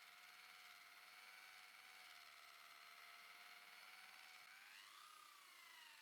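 Faint whine of a small motor running steadily, its pitch rising about four and a half seconds in and then sinking back.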